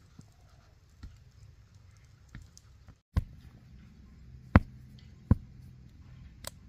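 Scattered sharp knocks and taps, with three loud knocks in the second half about a second apart, over a faint low hum.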